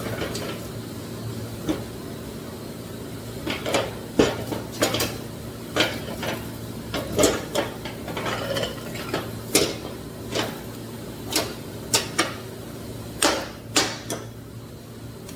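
Irregular metal clinks and knocks, a dozen or more, from handling the freshly TIG-welded aluminum piece and tools on the bench, over a steady low hum.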